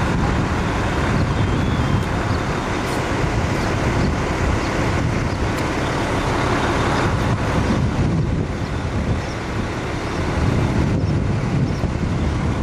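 Fire engine's diesel engine running steadily, driving its pump to supply the hose lines.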